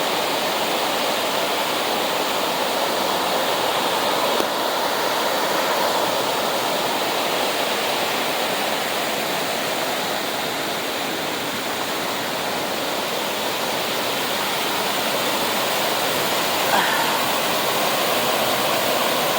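Waterfall rushing up close: a steady, loud roar of falling water.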